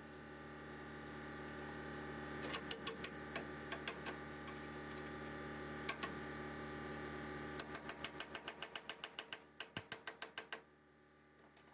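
A small electric motor hums steadily and slowly grows louder. Around it come scattered sharp clicks, then a quick run of regular clicking, about five a second, that stops suddenly near the end.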